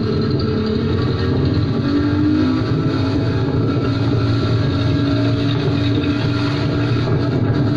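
Small speedboat's engine running steadily under way, with the wash of the hull and water.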